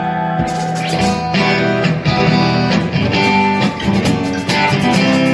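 Rock music with guitars playing over held bass notes, and a steady beat coming in about half a second in.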